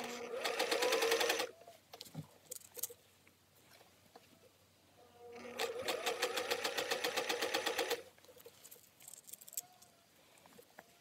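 Singer 500A sewing machine stitching a flat felled seam in two short runs, the first about a second and a half and the second about two and a half seconds, each a fast, even run of needle strokes over the motor whine rising as it speeds up. Faint clicks come between the runs.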